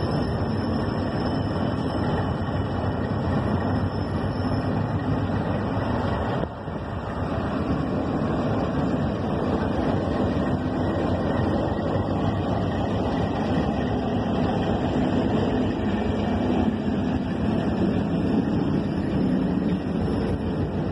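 DF7G-C diesel-electric locomotives running as they haul a freight train past at low speed: a steady low engine rumble mixed with the rolling of the freight wagons on the rails.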